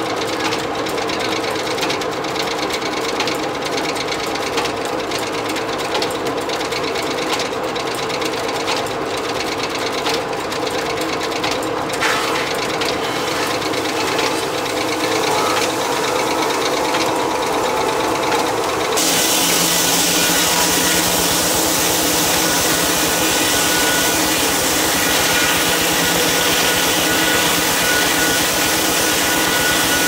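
Steam-powered circular sawmill running, its flat belts and pulleys spinning with a fast steady clatter. A little past the middle the big circular blade enters a log, and the sound changes suddenly to a loud, high rush of sawing with a steady whine, held to the end.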